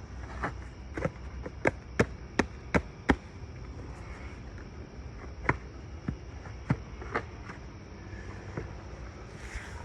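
A series of sharp knocks: six in quick succession at about three a second, then four or five more, spaced further apart.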